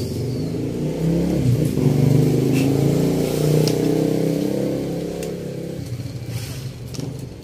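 Handheld corded electric drill running under load, its bit pressed to the flywheel centre of a bare Suzuki K6A engine block. The motor hum grows louder about two seconds in, then eases off after about six seconds.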